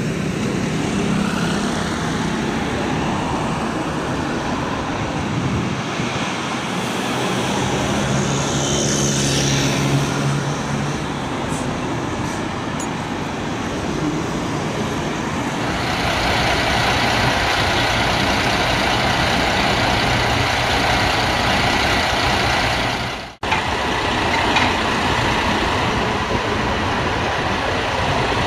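Police tow truck's diesel engine running amid city street traffic. About halfway through a steady hiss sets in and carries on, and the sound drops out for a moment near the end.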